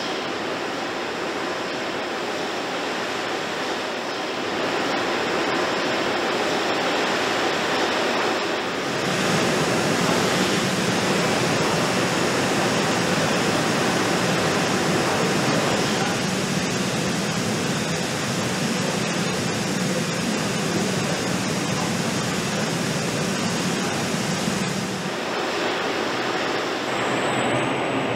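Steady rushing hiss of a robotic car-body paint booth, the air flow and spray of the painting robots. It grows louder about nine seconds in, with a low hum underneath until near the end.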